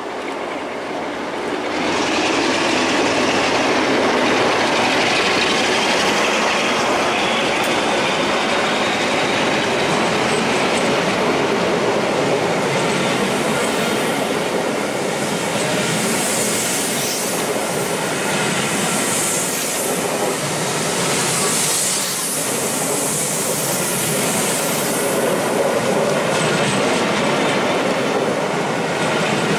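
A steam-hauled passenger train, the LMS Jubilee 45596 Bahamas railtour, passing at speed. There is loud, steady running noise of wheels on rail from about two seconds in, with wheels clattering over rail joints and a high wheel squeal.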